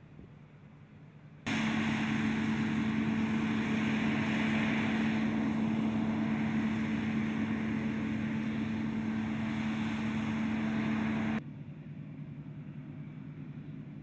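Claas combine harvester at work cutting grain: a loud steady machine drone with a strong even hum under a broad rushing noise, starting suddenly about a second and a half in and cutting off suddenly near the end. Before and after it there is only a fainter, more distant drone.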